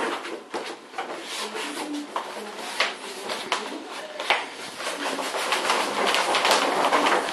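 Adhesive vinyl film crackling and rustling as it is handled and rubbed down, with scattered small clicks; the crackle grows denser in the last couple of seconds.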